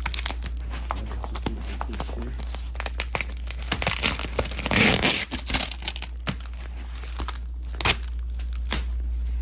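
Plastic packaging crinkling and tearing as a new pouf is unwrapped: irregular crackles throughout, with a louder rustle about halfway through.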